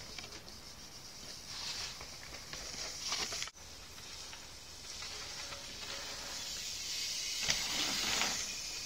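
BMX bike tyres rolling over a dirt track, loudest as the bike passes close near the end, over a steady high hiss. The sound drops out briefly about a third of the way in.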